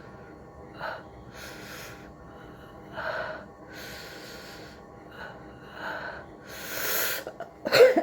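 A person's nose and breath under a matchstick tickle: a string of breathy gasps and sniffs, growing louder, then a sharp sneeze near the end.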